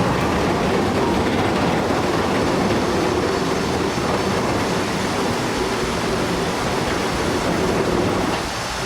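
Heavy machinery running: a steady, loud mechanical rumble with a low hum that eases slightly near the end.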